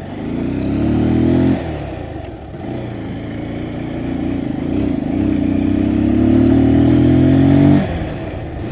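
Motorcycle engine pulling under throttle while riding. The revs climb for about a second and a half and fall back sharply. They then climb steadily for about five seconds before dropping again near the end.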